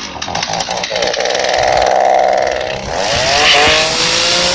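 Chainsaw running at high revs, its engine note dipping about three seconds in and then settling a little lower.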